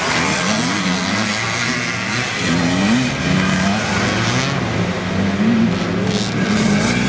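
Vintage motocross motorcycle engines revving hard, the pitch climbing and dropping again and again with throttle and gear changes.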